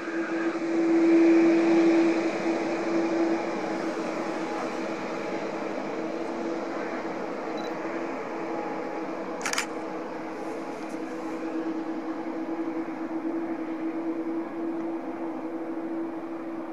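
Jet engines of a Boeing 787-9 Dreamliner running at low taxi power: a steady hum with a droning tone, a little louder in the first couple of seconds. A single sharp click about nine and a half seconds in.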